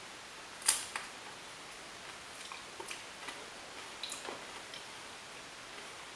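Quiet handling and eating sounds of someone tasting food: one sharp click a little under a second in, then faint, irregular ticks and clicks.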